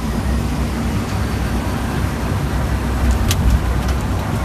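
Airliner cockpit during the landing roll: a steady low rumble of engines and wheels on the runway, with a constant hum and a couple of short clicks about three seconds in.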